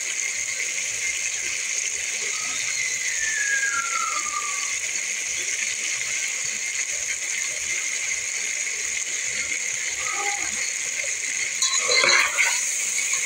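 Chicken wings frying in oil in an aluminium pot, a steady crackling sizzle. About twelve seconds in, a steel spoon stirs them, scraping and clattering against the pot; this is the loudest part.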